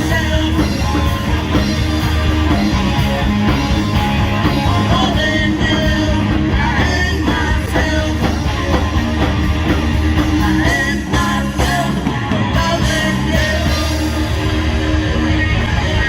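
Live rock band playing loudly, with a singer's voice over drums, bass and electric guitar.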